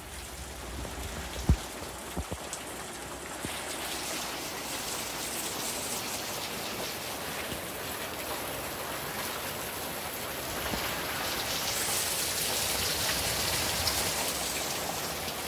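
Heavy rain pouring down in a steady downpour, with a few sharp knocks about one and a half to two and a half seconds in. The rain grows a little louder in the last few seconds.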